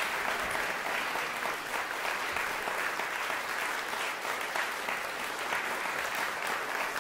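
Audience applauding steadily in a concert hall, a dense, even patter of many hands clapping.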